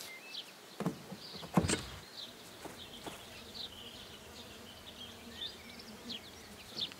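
Quiet outdoor ambience with scattered short, high chirps from small birds or insects, and two soft thuds in the first two seconds.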